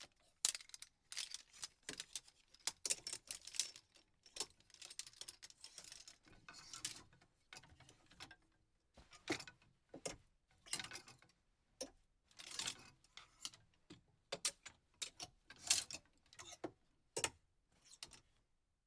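Clothes hangers clicking and rattling on a closet rail: a long run of irregular light clacks and short scraping rattles as hangers are slid along and knocked together.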